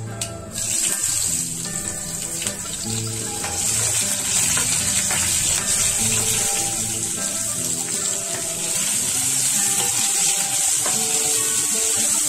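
Hot oil in a pan sizzling as green chillies, curry leaves and sliced onions fry in a tempering of cumin and dried red chillies, stirred with a wooden spatula. The sizzle comes up suddenly about half a second in and stays steady. Background music plays under it.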